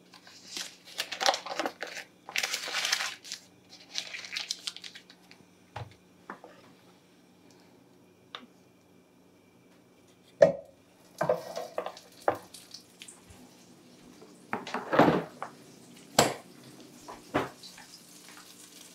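A knife cutting a block of unsalted butter and rustling through its wrapper, then clicks and knocks as the butter goes into a hot metal pan and a wooden spatula moves it, the loudest knock a little past the middle. A faint sizzle builds near the end as the butter starts to melt, over a low steady hum.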